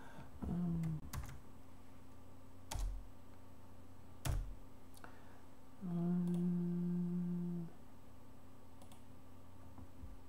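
Scattered keystrokes on a computer keyboard as a line of code is typed: a few separate clicks, several seconds apart. About six seconds in, a person's steady hum, held for nearly two seconds.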